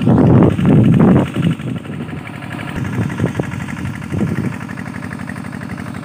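Wind buffeting the microphone, heaviest in the first second or so, then easing, over a steady low hum.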